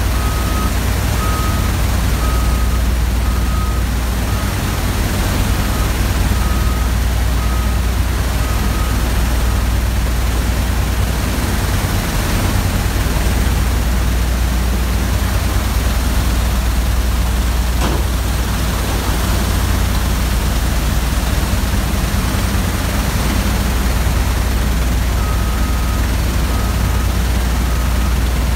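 Drilling-mud shale shaker and its surrounding rig machinery running, a loud, steady low hum. A reversing alarm beeps about once a second through the first nine seconds or so and starts again near the end.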